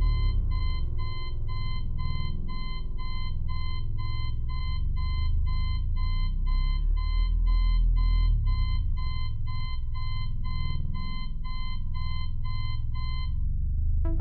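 Digital alarm clock beeping, a rapid steady run of about two or three identical beeps a second, over a low rumbling drone. The beeping stops near the end as the clock is switched off.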